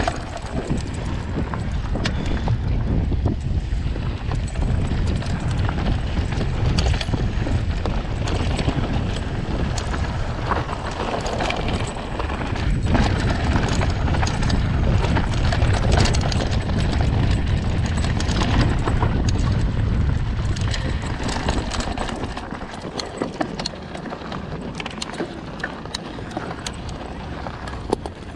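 Mountain bike riding over loose dirt and stones, tyres crunching and the bike rattling with frequent sharp clicks, while wind buffets the microphone with a heavy rumble. The wind rumble eases about 22 seconds in as the bike slows near the ridge top.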